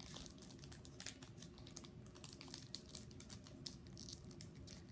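Foil booster-pack wrapper of a Pokémon trading card pack crinkling faintly in the hands as someone struggles to tear it open, a steady run of small irregular crackles.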